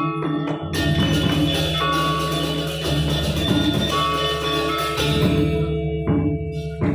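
Balinese gamelan orchestra playing: bronze metallophones and gongs struck in a dense, ringing pattern.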